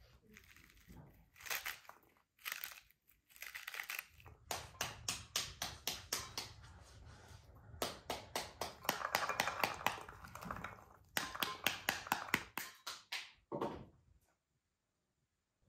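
Pomegranate being broken open by hand: the peel tears and crackles, and seeds snap loose into a bowl in quick runs of sharp clicks. It stops abruptly about fourteen seconds in.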